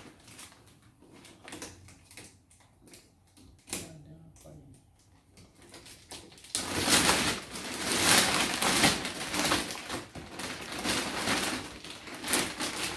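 Clear plastic zip-lock bag being handled and opened. A few soft clicks and rustles at first, then loud, dense crinkling from about halfway through as the jeans are pulled out of the bag.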